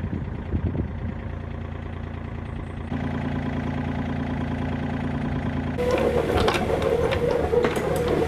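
Mini excavator's diesel engine running, its note stepping up about three seconds in; from about six seconds a steady whine joins it, with repeated metallic knocks and clanks of the machine working.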